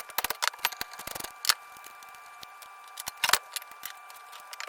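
Metal clicks and clinks of hand tools working on a dirt bike's front end during disassembly: a quick irregular run of them in the first second and a half, then a louder pair about three seconds in. A faint steady whine sits underneath.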